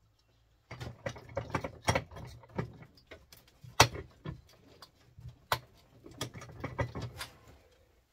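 Small metal parts and hand tools clattering and clinking as they are handled and rummaged through on a workbench, with a few sharper knocks, the loudest about four seconds in.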